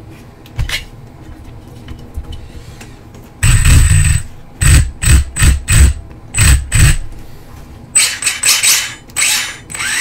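Losi Mini B's Hobbywing EZRUN brushless motor and drivetrain run in a series of short throttle blips, each starting with a high-pitched whine, the first about a second long and the rest shorter. This is a check of how tight the slipper clutch is.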